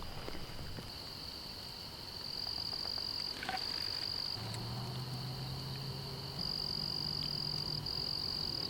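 Night chorus of frogs and insects: a steady, high-pitched trilling, with a low drone joining in for a few seconds in the middle.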